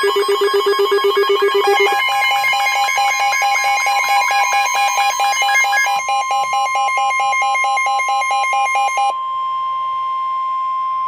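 Emergency weather alert tones: a steady single-pitched warning tone, the kind of attention tone that comes before a National Weather Service warning broadcast, with a rapidly pulsing, ring-like electronic alarm laid over it. The pulsing alarm jumps higher in pitch about two seconds in and stops near the end, leaving the steady tone sounding alone.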